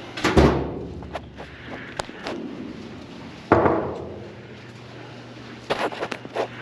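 Two heavy thuds about three seconds apart, each ringing out briefly, with lighter knocks and clicks between them.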